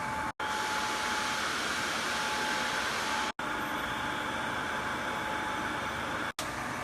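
CK6150 CNC lathe running with a steady whirring noise and a faint, even whine. The sound drops out abruptly for an instant three times, about three seconds apart.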